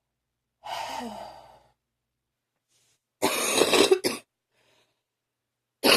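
A person's phlegmy morning cough: a hoarse rasp about a second in, then a loud, harsh hacking throat-clear at about three seconds as they try to bring up phlegm, and another cough starting near the end.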